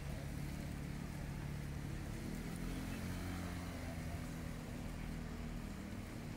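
Motor vehicle engine running at low revs, a steady low hum with a slight rise in pitch a couple of seconds in.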